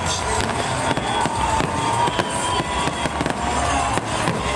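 Fireworks display: aerial shells bursting, a dense run of bangs and crackles with no break.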